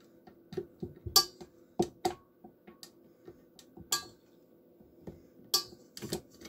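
A string of irregular clicks and light clinks as the white coated flat beater is worked off the beater shaft of a tilt-head KitchenAid stand mixer.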